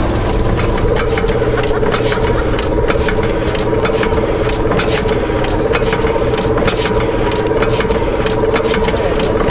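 Antique stationary engine with large flywheels running, a fast clatter of about four or five clicks a second. A steady wavering drone sets in about a second in.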